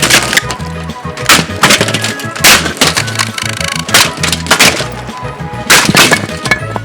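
Plastic Lasko box fan being smashed apart: a string of loud, irregular cracking and splintering impacts. Background music with a repeating bass line plays underneath.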